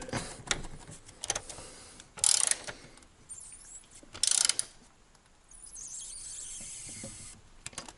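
Screwdriver turning the set screw in a circuit breaker's cable lug, tightening it down on a heavy cable: a few short bursts of ratchet-like clicking, about two seconds apart, then a faint steady hiss near the end.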